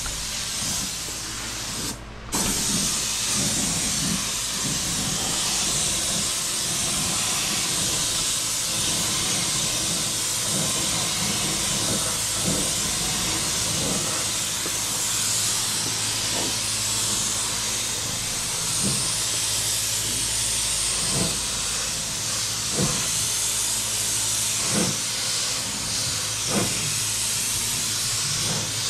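Gravity-feed paint spray gun hissing steadily as it sprays a car's engine bay, with a brief break about two seconds in when the trigger is let off. A few faint knocks come in the second half.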